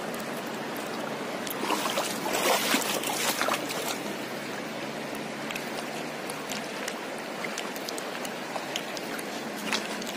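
Shallow river water running over stones, with a louder stretch of splashing about two seconds in as a hand works in the water picking up river snails.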